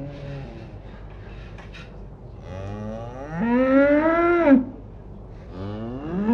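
A cow mooing: one long moo that rises in pitch and breaks off suddenly, then a second moo starting near the end.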